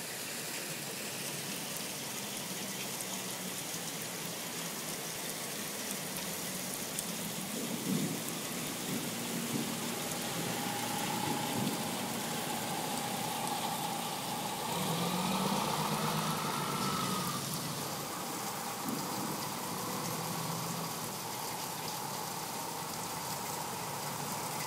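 Steady rain falling in a thunderstorm, an even hiss. A faint whine swells and fades around the middle.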